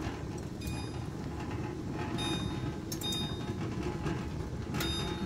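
Glass canning jars rattling in a pot of water at a rolling boil while being sterilized: a steady rumble of boiling water with about four sharp, ringing glass clinks.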